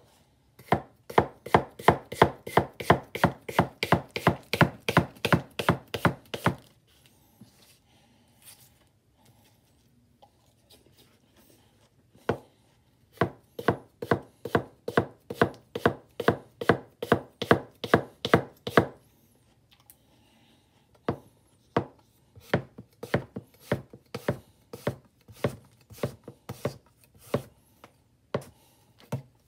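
A 300 mm Goko Kogetsu SK carbon-steel gyuto slicing an apple thin on a wooden cutting board, the edge tapping the board with each stroke. There are two fast runs of about four cuts a second, then slower, spaced cuts near the end.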